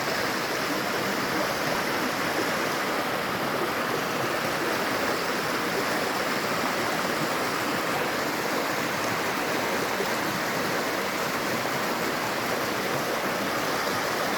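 A river flowing, an even, unbroken rush of water.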